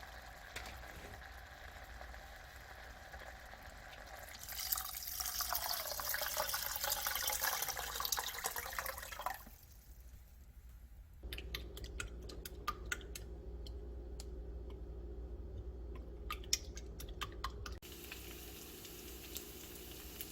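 Kitchen tap running water into a container for about five seconds, its pitch rising a little as it fills. After a short pause, a steady low hum with scattered clicks.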